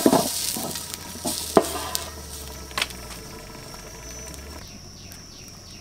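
A metal lid clanks down onto a wok of stew just at the start, followed by two more sharp knocks, over the sizzling hiss of the stew cooking underneath. The hiss thins out near the end.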